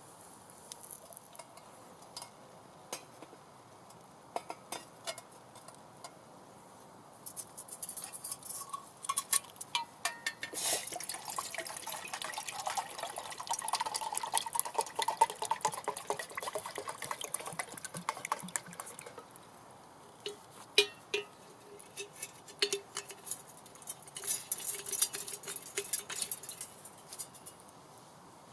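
Water being poured into a metal cooking pot for about twelve seconds in the middle, with clicks and clinks of cookware before and after.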